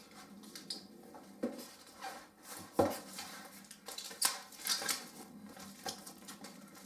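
Scattered clicks and knocks of hard parts being handled: the soundbar speakers' stand feet being taken out of their packaging. The loudest knock comes about three seconds in.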